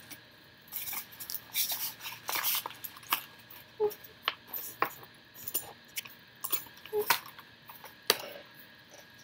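Irregular clicks, clinks and knocks of small hard items being handled and packed into a cardboard box, with brief rustles of packaging; a couple of taps ring briefly, and the loudest two knocks come near the end.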